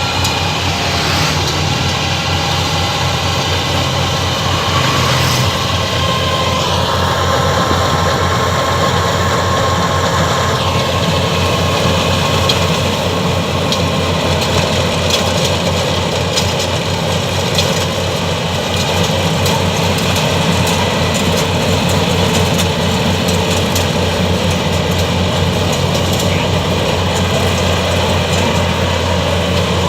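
Rice combine harvester running steadily, with its engine drone and the clatter of the machinery. A higher whine joins about seven seconds in and drops away after a few seconds.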